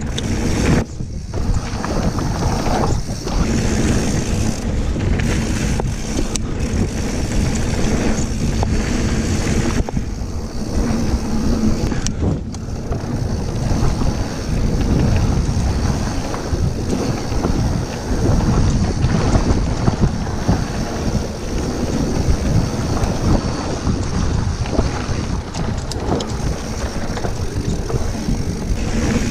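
Mountain bike rolling fast down a dirt flow trail: steady wind buffeting on the action camera's microphone over the rumble of knobby tyres on dirt.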